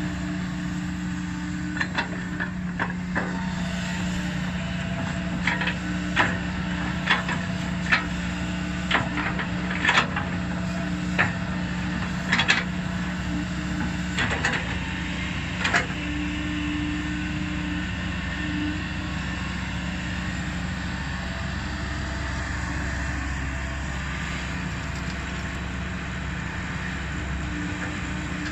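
Kobelco SK200 excavator's diesel engine running steadily under work. A string of sharp knocks comes through it in the first half, then the engine carries on alone.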